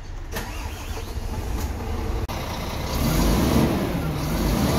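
Scania XT dump truck's diesel engine running, heard from inside the cab. About three seconds in it grows louder and its pitch rises and falls, as when the engine is revved.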